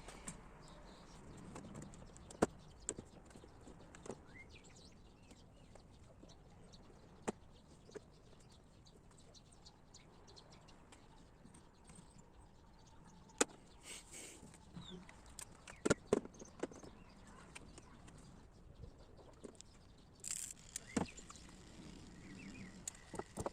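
Faint, scattered clicks and knocks at irregular intervals, with a small cluster about two-thirds of the way through.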